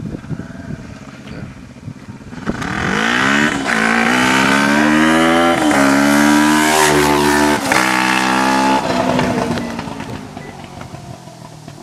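Gutbrod racing lawnmower with a Honda CB500 motorcycle engine accelerating past. The engine note swells up about two and a half seconds in and changes pitch in steps as it goes through the gears, then fades away as it moves off.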